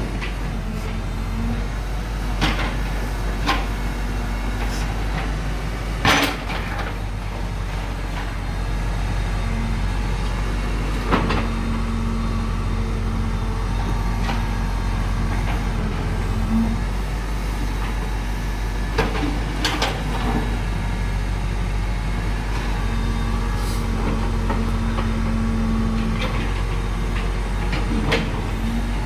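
A JCB machine's diesel engine running steadily, with a higher steady hum that comes and goes and a scattering of sharp knocks and clanks, the loudest about six seconds in, as it breaks up a concrete water-channel control box.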